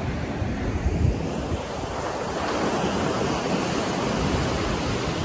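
Ocean surf breaking and washing up the shore, with wind buffeting the microphone. The surf grows a little louder about two seconds in.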